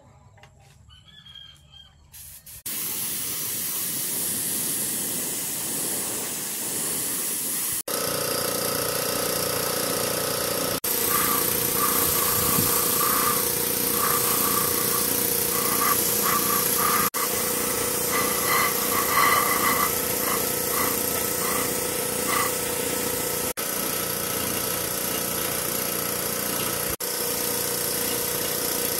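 A machine running steadily with a strong hiss, starting about three seconds in and dropping out briefly several times.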